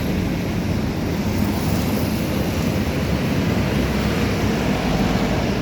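Steady low rumble of road traffic, vehicle engines and tyre noise, with no horn sounding.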